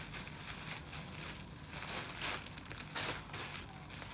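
Crinkling and rustling as T-shirts in their packaging are handled and shuffled through, in irregular bursts several times a second.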